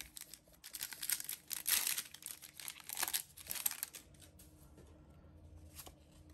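Gold foil wrapper of a Yu-Gi-Oh Maximum Gold: El Dorado booster pack crinkling and tearing as it is ripped open by hand. It crackles for about three seconds and is loudest twice, near two and three seconds in.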